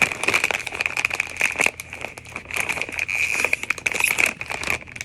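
Foil potato chip bag crinkling and crackling as it is handled and opened, in a dense run of irregular crackles.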